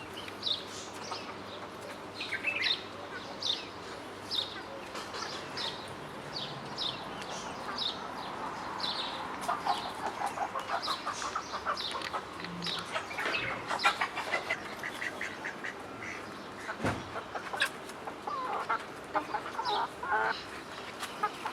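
Farmyard fowl calling: many short, high chirps throughout, with a run of rapid, lower clucking calls in the middle.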